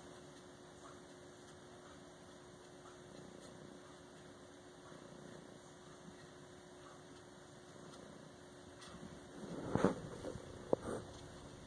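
Faint room tone with a steady low hum. About ten seconds in, a brief burst of noise with a few sharp clicks.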